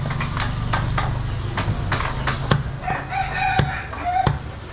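Butcher's cleaver chopping goat meat on a wooden block: a string of sharp, irregular chops over a steady low hum. A rooster crows once in the background about three seconds in, a single held call of about a second and a half.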